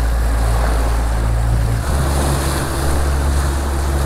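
Outboard motor running at trolling speed, with the wake washing behind the stern and wind on the microphone. The engine note shifts abruptly about two seconds in.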